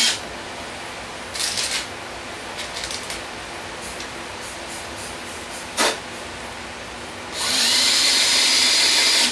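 Milwaukee cordless drill running in two runs: one cuts off just as the clip begins, the other starts about two-thirds of the way in and runs steadily. Between them come a brief whirr, some light clatter and one sharp click.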